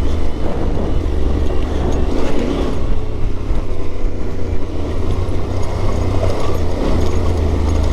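Yamaha Ténéré 700's parallel-twin engine running steadily, with a continuous low rumble.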